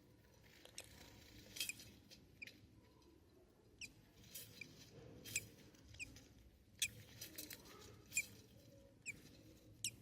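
Baby budgerigars peeping: a dozen or so short, high, squeaky cheeps at irregular intervals, faint overall.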